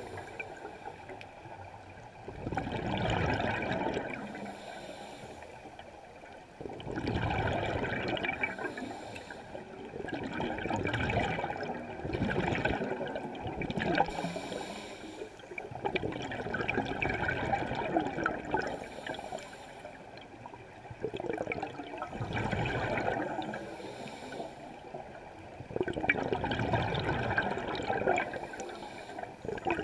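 Scuba diver breathing through a regulator underwater. A gurgling burst of exhaled bubbles comes about every four to five seconds, with a short hiss of inhalation between them.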